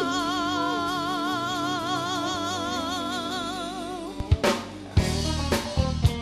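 Live band music: a singer holds one long note with vibrato over sustained chords. About four seconds in, the held note ends and the drum kit plays a few sharp kick and snare hits.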